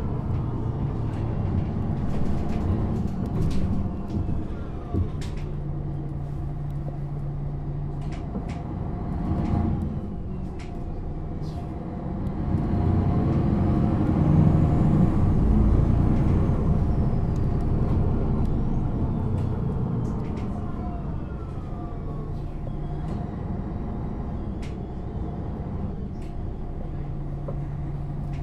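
MAN NG 313 articulated bus under way: its diesel engine and ZF automatic gearbox running, the note stepping in pitch as it changes gear. About halfway through it gets louder as the bus pulls harder, then eases off again, with scattered short rattles and clicks throughout.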